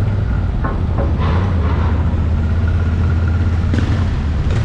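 A steady low engine drone with a few short clanks and knocks over it.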